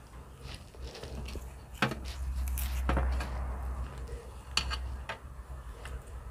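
Close-miked hands handling bananas, reaching for and pulling at the bunch, with several sharp clicks and taps. The loudest click comes just under two seconds in and another about four and a half seconds in, over a low rumble in the middle.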